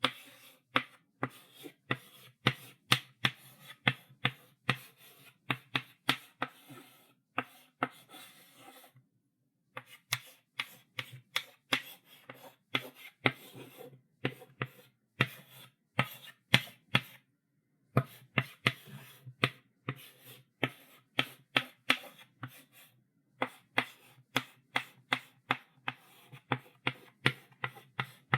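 Chalk writing on a blackboard: quick sharp taps of the chalk stick against the board mixed with short scratching strokes, breaking off briefly about nine, seventeen and twenty-three seconds in.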